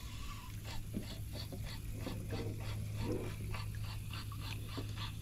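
Spinning reel being cranked steadily to retrieve a swimbait: an even run of quick ticks, about three or four a second, over a low steady hum.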